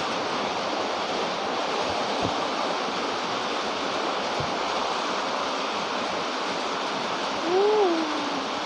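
Steady rushing hiss with no clear pattern, and a short vocal sound near the end.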